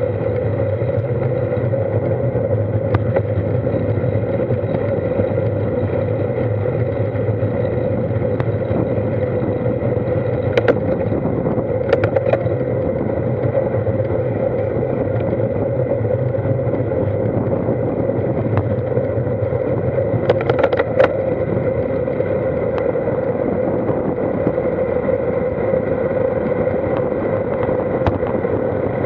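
Steady wind and road rumble picked up by an action camera on a road bike's handlebars while riding, with a few sharp clicks and knocks scattered through, the loudest cluster about two-thirds of the way in.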